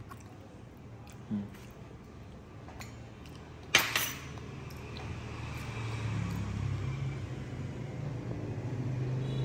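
A metal fork clinks once against a ceramic dish a little under four seconds in, over a faint, steady low hum.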